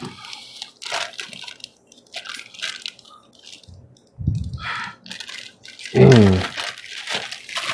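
Plastic bags crinkling and rustling with small clicks as bagged cables and connectors are handled, with a low bump about four seconds in.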